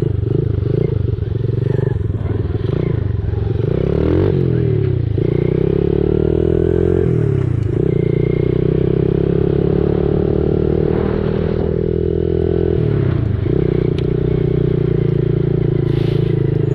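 Dirt bike engine running while ridden, its note climbing and dropping several times with the throttle.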